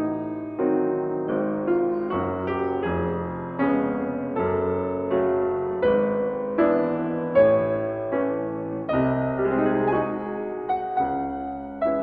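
Background music: a piano playing a slow melody over chords, a new note or chord struck roughly every second.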